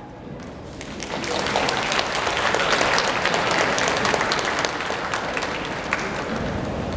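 An audience applauding, the clapping building up about a second in and carrying on steadily.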